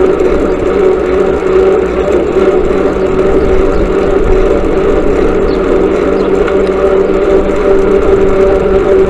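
Motorcycle engine running at a steady speed, its pitch holding even with no revving or gear changes.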